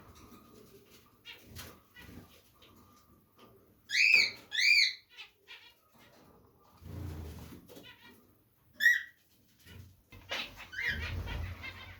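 Caged pet birds, cockatiels and finches, calling: two loud arched calls close together about four seconds in, another loud call near nine seconds, and softer chirps near the end.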